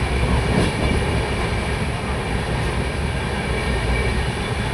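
Train running along the track: a steady, unbroken low rumble of wheels on rails.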